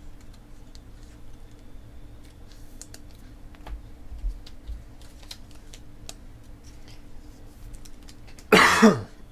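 Soft, sparse clicks and rustles of trading cards and packs being handled, then near the end a person coughs loudly once.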